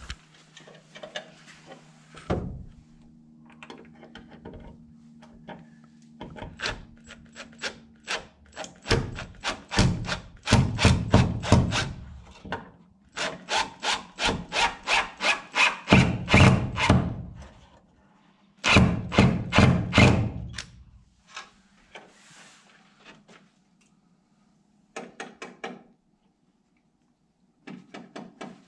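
Cordless drill driving wood screws through a metal light-mount bracket into a wooden plank wall, in several bursts of a few seconds each with a fast, even pulsing.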